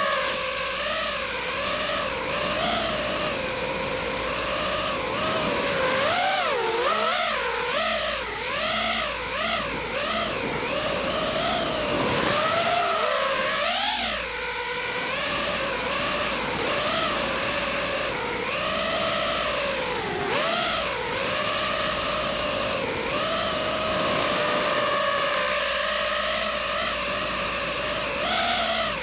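FPV racing quadcopter's brushless motors and propellers whining, the pitch swinging up and down continually with the throttle, with the fastest swings in the middle stretch.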